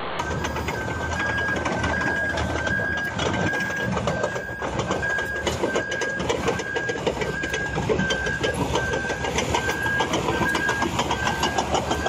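Crawler bulldozer running as it goes down a steep slope, its steel tracks clanking in a fast, even rhythm, with a short high tone repeating evenly throughout.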